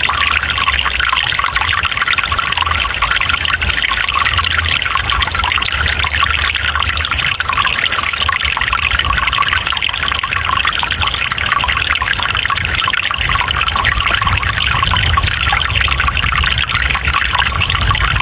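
Running water trickling and splashing steadily, with a low rumble underneath.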